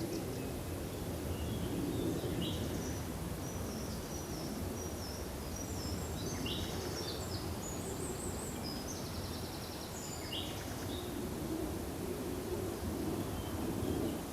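Forest ambience: a steady background noise with small birds calling over it, a series of short high chirps and a buzzy trill through the first two thirds.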